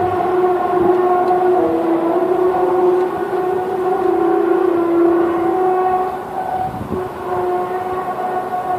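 A long, droning horn-like tone with several notes sounding together, wavering slightly in pitch and dipping in loudness about six seconds in. It is one of the unexplained 'strange sounds' that people record from the sky.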